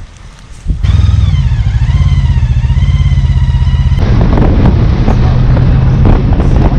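Touring motorcycle engine running steadily while riding, coming in abruptly about a second in, with a wavering higher whine over it for the next few seconds. From about four seconds in, wind buffeting on the microphone joins the engine.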